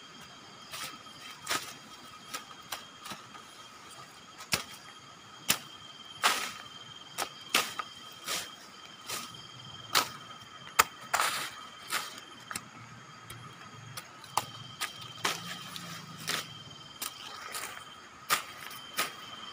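Steady night chorus of insects holding two high tones, broken by sharp, irregular clicks and snaps, about one or two a second.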